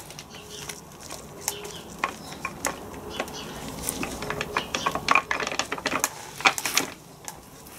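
Irregular metallic clicks and clinks of steel gears and small parts being handled and worked loose on a stripped-down Land Rover R380 gearbox's gear cluster, coming thicker in the second half.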